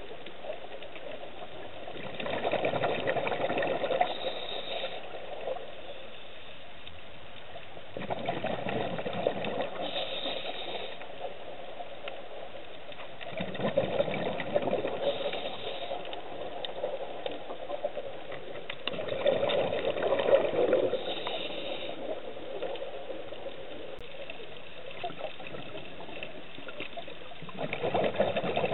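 Scuba diver breathing through a regulator underwater: five rushes of exhaled bubbles, about every five to six seconds, each followed by a short hiss from the regulator.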